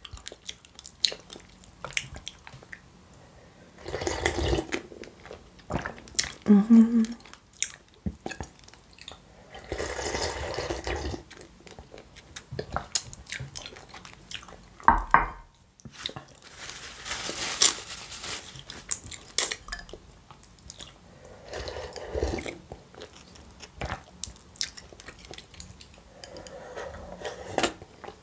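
Close-up eating of borscht: a spoon knocking against the bowl, slurping of the liquid soup and chewing, in separate bursts a few seconds apart.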